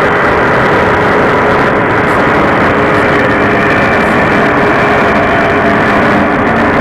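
Power tool spinning a diamond core bit, cutting a hole through a tile that is kept wet with water: a loud, steady grinding run.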